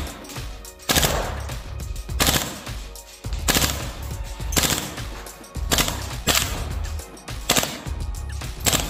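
GHK G5 gas blowback airsoft rifle firing on full auto in short bursts, about seven of them roughly a second apart, each a quick rattle of shots as the bolt cycles.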